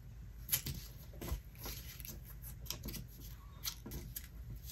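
Faint rustling and soft crackles of a sheet of printer paper being folded and creased by hand, in scattered brief touches.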